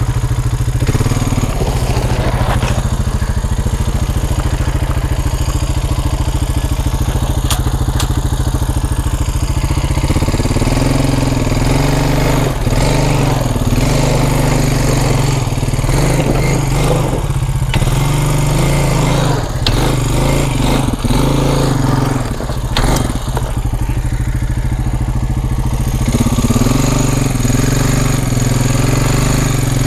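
Vehicle engine running steadily under way, its note rising about a third of the way in and shifting again later, with scattered knocks and rattles.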